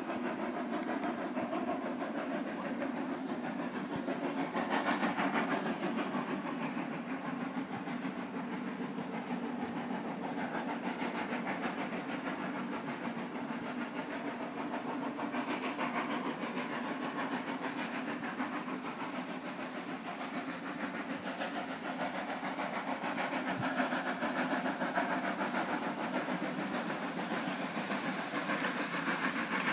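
Hunslet Austerity 0-6-0 saddle-tank steam locomotive approaching from a distance: a steady rushing sound of the engine working, with no clear separate exhaust beats.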